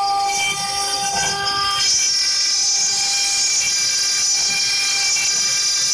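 CNC engraving machine's spindle running with a steady, pitched whine while engraving glass. About two seconds in, a harsher high hiss joins it.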